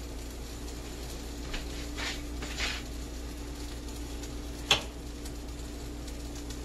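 Quiet kitchen background: a steady low hum with a couple of faint soft swishes, and one sharp click about three-quarters of the way through.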